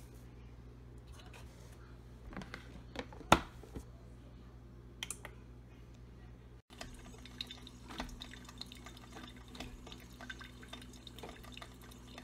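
A few clicks and knocks as a Black & Decker drip coffee maker is handled, the loudest about three seconds in. After a brief break, the coffee maker brewing: a steady low hum with a run of small crackles and drips.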